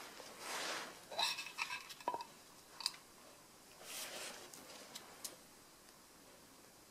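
Faint handling noises: soft rustling of gloved hands and towel with a few light clicks of small metal speedometer parts, the gear shaft and housing, being picked up and set down. It dies away a little past halfway.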